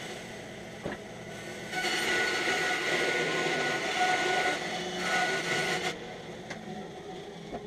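Bandsaw cutting through a thick log blank as the blank is turned on a circle-cutting jig, a steady whir with a thin whine. It is louder from about two to six seconds in while the blade is under load, then eases off.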